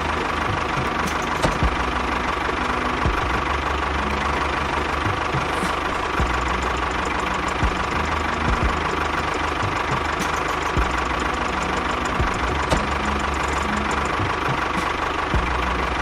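A motor running steadily at an even speed, with a constant whine and a low rumble.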